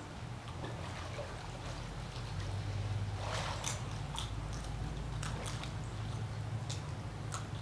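Water lapping and trickling in a sea otter pool over a steady low hum, with scattered sharp clicks and taps in the second half.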